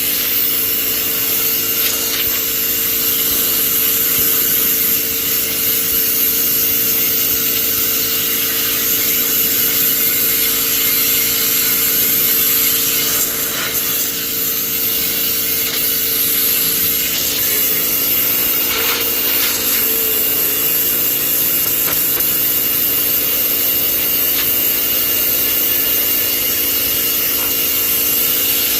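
Pressure washer running steadily: a constant motor hum under the hiss of the high-pressure water jet washing off feeding trays.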